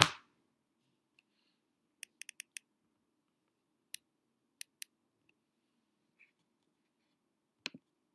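A throat clearing ends right at the start. Then a computer mouse clicks sharply now and then: a quick run of about five clicks about two seconds in, a few single clicks, and a double click near the end, over a faint low room hum.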